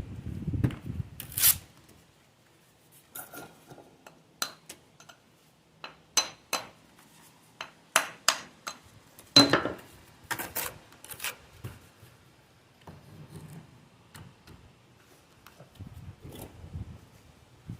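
Stone masonry hand work: sharp clinks and knocks of a metal tool on stone, with some scraping, coming in irregular clusters. The loudest knock comes a little past the middle, and the taps thin out near the end.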